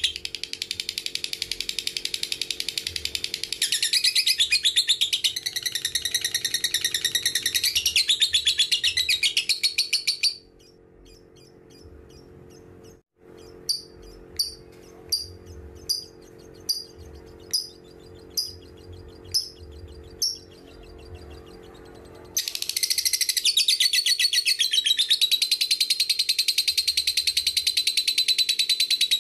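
Lovebird in long 'ngekek' chatter, a fast, high, continuous trill lasting about ten seconds. It breaks off into a quieter spell of about ten single sharp chirps, spaced evenly, then goes back into unbroken chatter for the last seven seconds.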